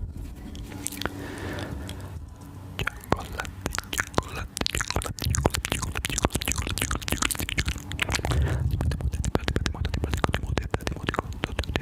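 Close-miked ASMR mouth sounds: rapid, irregular wet clicks and smacks that grow denser about three seconds in, with low rumbling thuds at times.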